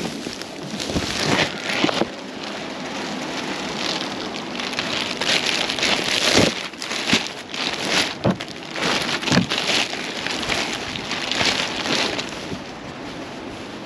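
Black plastic trash bag rustling and crinkling in irregular surges as hands open it and rummage through the clothes inside.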